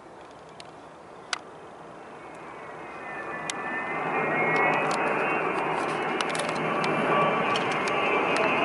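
Jet engines of an Il-76 transport and two escorting Su-27 fighters passing overhead. Faint at first, the noise swells to a loud, steady rush with a high whine about three to four seconds in.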